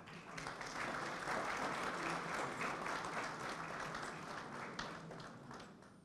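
Audience applauding, building up over the first second and slowly dying away near the end.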